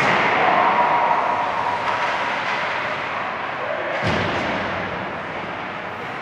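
Ice hockey rink noise with a sharp thud about four seconds in, typical of a hit against the rink boards.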